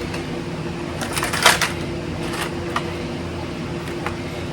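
Steady background hum with a few light clicks and a brief louder rustle about a second and a half in, from items and packaging being handled.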